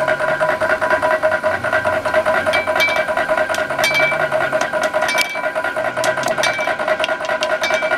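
Hand hammer striking a red-hot coiled steel scroll on an anvil: a string of sharp metallic blows, some with a brief ring, starting about two and a half seconds in. Background music with sustained tones and a shifting bass plays throughout.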